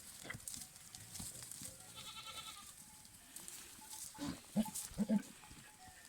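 Goats bleating in a herd during the rut: a faint drawn-out bleat about two seconds in, then a few short, louder calls between four and five seconds in.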